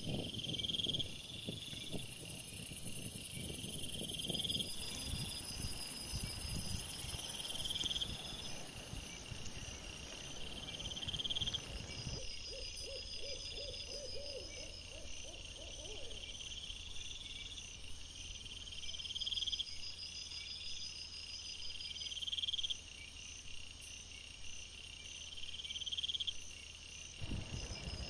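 Night insects chirping: a short high chirp repeats about every one and a half to two seconds. In roughly the first twelve seconds there is low rustling and knocking from an animal moving close to the trail camera.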